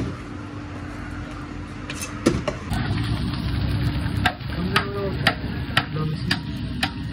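Cleaver chopping fish on a block: sharp strikes about twice a second over a steady low hum.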